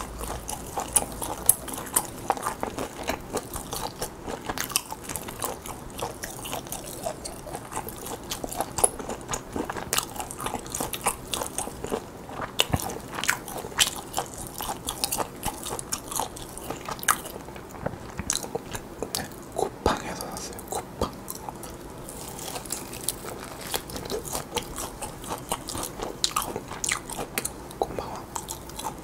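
Close-miked chewing and biting of roast lamb on the bone: wet mouth clicks, smacks and occasional crunches in quick, irregular succession.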